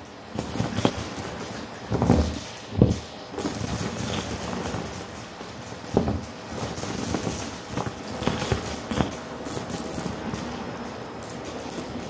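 Shark Navigator vacuum's bare wand sucking up a pile of fluff and small plastic pieces, beads and caps from carpet: a steady suction hiss with irregular rattles and clacks as hard bits shoot up the tube.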